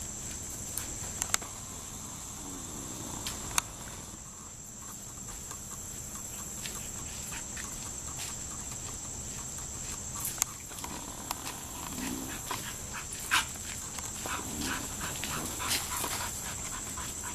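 Labrador puppy on a leash making a few short, low whines, with scattered sharp clicks and scuffs, over a steady high-pitched drone.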